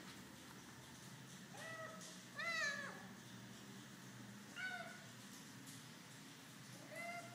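Ginger domestic cat meowing four times, each call rising then falling in pitch, the second call the loudest and longest.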